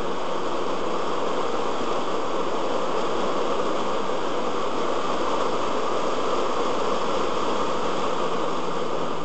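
Car driving at speed, heard through a dashcam microphone inside the cabin: a steady rush of road and wind noise with a faint low, steady drone underneath.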